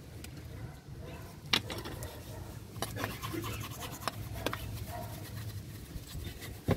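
Faint rubbing and a few scattered sharp clicks and taps as sandpaper and hands move about a brake caliper bracket between sanding passes, over a low steady hum.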